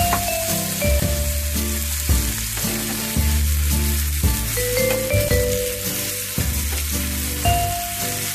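Chicken pieces sizzling in hot oil and spice juices in a nonstick frying pan, turned and pushed about with a spatula. Underneath runs background music of held notes that change every second or so.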